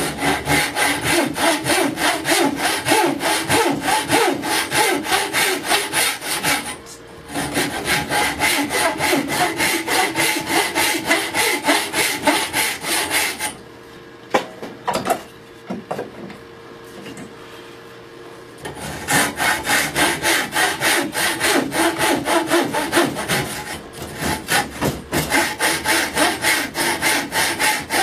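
A thin steel saw blade sawing back and forth into a small wooden block held in a bench vise, cutting a kerf with quick, even strokes. The sawing stops briefly about seven seconds in and again for about five seconds midway, then picks up again.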